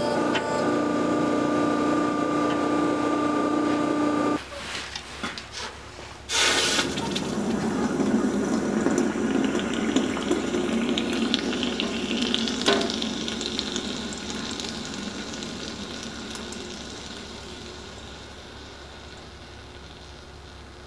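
A forging press's motor hums steadily for the first four seconds. Then a red-hot steel-and-copper billet is plunged into a water quench tank: a sudden loud hiss, then sizzling and bubbling that slowly die away, with a single knock partway through.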